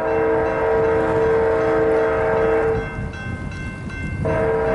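Air horn of an approaching BNSF freight locomotive sounding a long chord blast, breaking off a little under three seconds in and starting again a second and a half later, over the low rumble of the train. Two long blasts like these open the long-long-short-long warning for a grade crossing.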